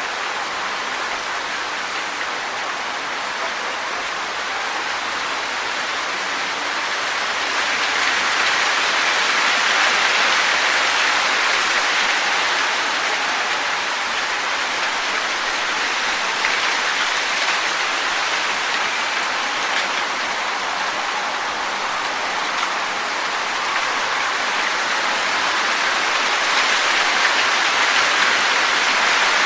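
Wind blowing through trees, rustling leaves in a steady hiss that swells into stronger gusts about a third of the way in and again near the end.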